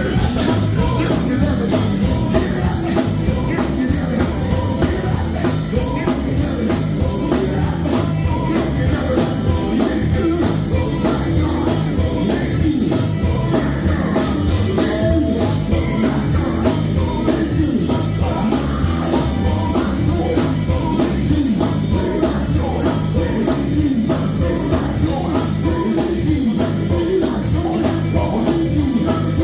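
Live gospel music played loudly by a band with drums, with singing over it.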